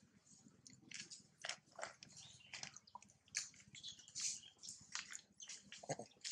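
Newborn macaque infant suckling at its mother's nipple: faint, irregular clicks and smacks from its mouth.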